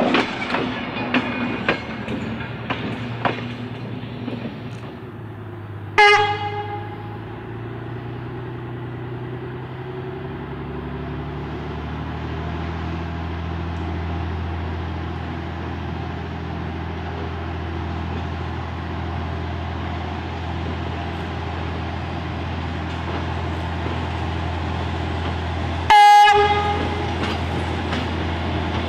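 Victorian Railways DERM 63RM diesel-electric rail motor. Its wheels click over the rail joints at first. A short horn blast comes about six seconds in, and its engine then drones steadily, growing louder as it approaches. A second, louder horn blast comes near the end.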